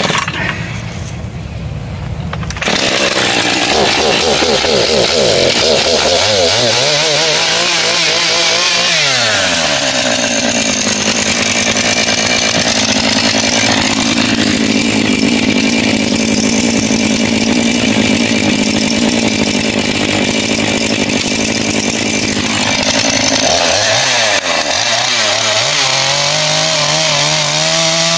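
A two-stroke chainsaw is started and catches about two and a half seconds in. It revs up and down, then runs at a steady high speed for a long stretch. Near the end it drops back and revs up again.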